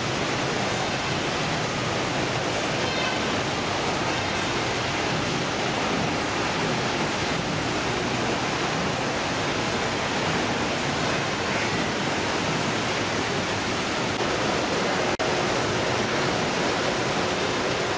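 Steady, even noise of a fish-processing line at work, conveyor machinery and running water on a factory ship's processing deck, with a sudden brief dropout about fifteen seconds in.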